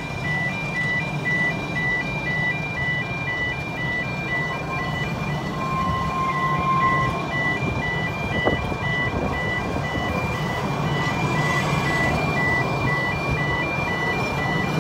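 Narrow-gauge railway coaches rolling slowly past with a low, steady rumble, while an electronic crossing warning alarm beeps about twice a second. A single clank about halfway through.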